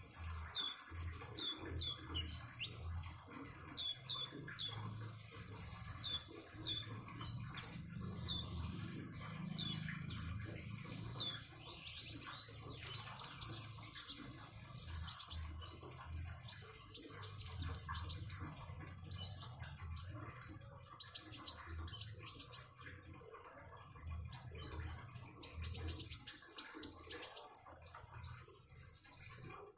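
A konin songbird singing a long run of quick chirps, whistled notes and rapid trills, over trickling water.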